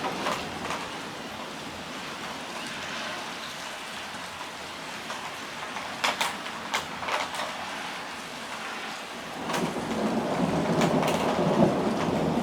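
Thunderstorm: steady rain hiss with a few sharp clicks about halfway, then a rumble of thunder swells up in the last few seconds and keeps rolling.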